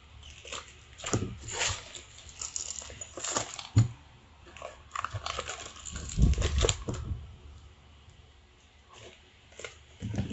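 A clear plastic bag and its tape being cut and torn open, crinkling irregularly in short bursts. A dull bump of handling comes about six seconds in, then it goes quiet for a couple of seconds.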